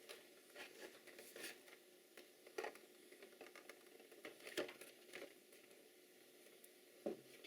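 Faint rustling and light taps of product packaging being handled and opened, in irregular short bursts.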